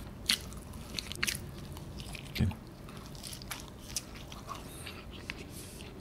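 Close-miked chewing of a bite of cheese-topped pizza crust: short, sharp mouth clicks and smacks every second or so. A dull thump about two and a half seconds in is the loudest moment.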